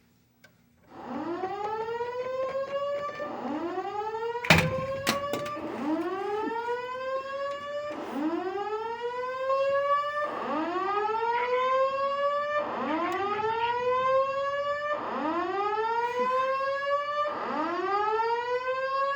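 Fire alarm voice-evacuation speakers sounding a whoop evacuation tone: a pitch that rises steadily, then restarts, about every two and a quarter seconds, eight times over. A sharp knock cuts in once, about four and a half seconds in.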